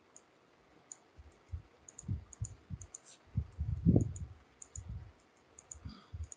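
Computer mouse clicking about fifteen times at an uneven pace as roto shape points are placed, with dull low thuds loudest about four seconds in.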